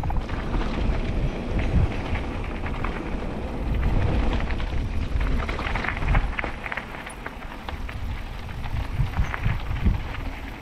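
Mountain bike rolling down a gravel trail: tyres crunching over loose stones and the bike rattling in a continuous clatter, with low wind rumble on the camera microphone.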